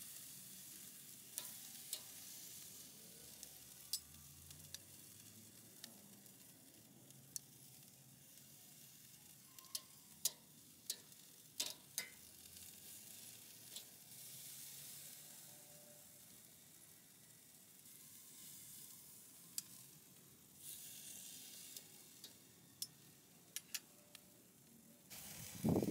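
Marinated beef picanha pieces sizzling faintly over direct charcoal heat on a Weber kettle grill grate, with scattered sharp clicks of metal tongs against the grate as more pieces are laid on.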